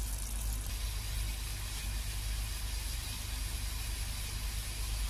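Steady hiss over a constant low hum from a pot of water boiling on the stove.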